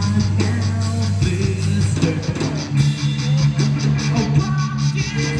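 Live rock band playing: electric guitars over a drum kit keeping a steady cymbal beat.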